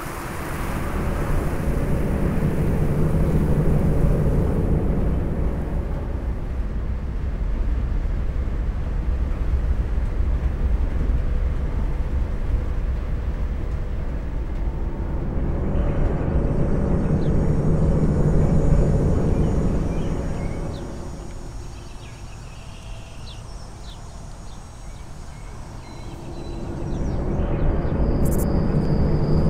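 Low mechanical rumble with a steady hum, swelling and fading in slow waves and dropping to a quieter lull about two-thirds of the way through. Near the end a thin high tone and a sharp click come in.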